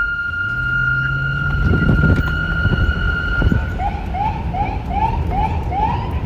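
Police car siren holding a steady high tone, then about three and a half seconds in switching to a fast yelp of short rising whoops, between two and three a second. A low traffic rumble runs underneath.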